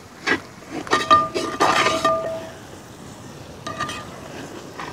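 Metal ladle stirring thick gravy in a large metal cooking pot, knocking and scraping against the pot so it rings briefly. A cluster of knocks with a scrape comes about one to two seconds in, and two more knocks near the end.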